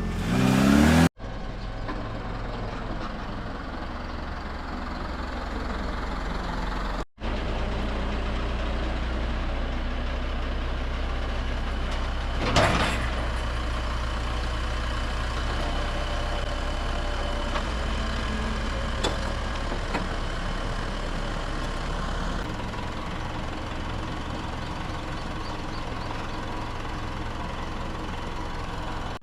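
A vehicle engine idling steadily, with a short hiss about twelve seconds in.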